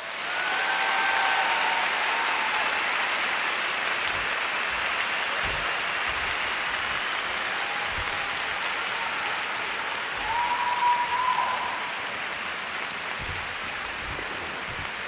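Arena audience applauding steadily, swelling up in the first second as the program music ends.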